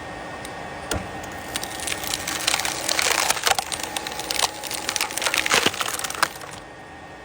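Wood cracking and splintering in many sharp, irregular cracks. They grow denser and louder toward the middle and stop suddenly near the end, over a steady background hum.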